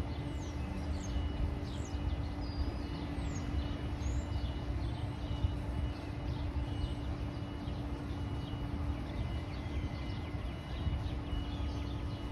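Small birds chirping in short, quick falling calls over a steady low rumble of outdoor background noise and a faint steady hum.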